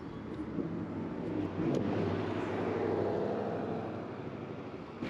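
A motor vehicle drives past, its engine and road noise swelling to a peak about two to three seconds in and then fading away.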